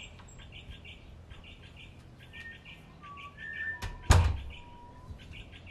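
Small birds chirping in quick repeated notes, with a few short whistled calls, and a front door thudding shut once about four seconds in.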